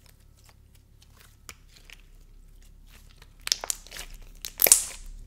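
Thick, glossy red slime being squeezed and stretched by hand, making small sticky clicks and pops that grow busier about three and a half seconds in, with the loudest pop near the end.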